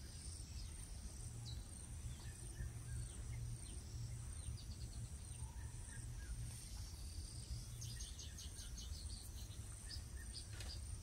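Outdoor nature ambience: a steady high-pitched insect drone with scattered bird chirps over a low rumble. About two-thirds of the way through comes a rapid run of short repeated chirping notes.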